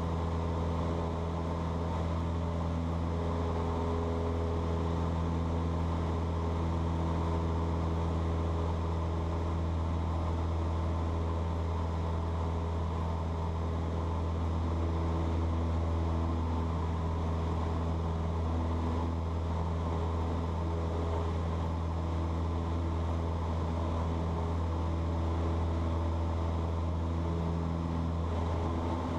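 Cessna 152's four-cylinder Lycoming engine and propeller droning steadily at constant power in flight, heard from inside the cockpit.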